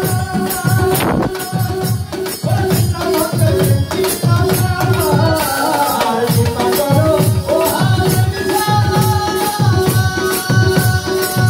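Live Bengali folk (baul) music: a dhol drum keeps a quick, steady beat under a rattling, jingling percussion, with held drone notes and a man singing a melody through a microphone.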